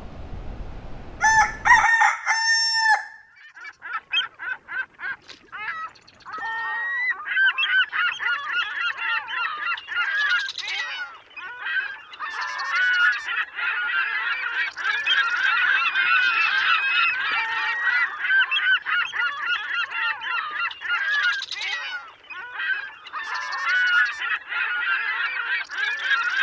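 A flock of birds calling with honking calls: a few loud single calls at first, then from about seven seconds in a dense, continuous chorus of overlapping calls.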